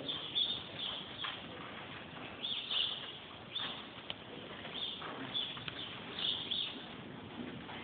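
Birds chirping, short high calls recurring about once a second, over the faint hoofbeats of a horse cantering on arena sand.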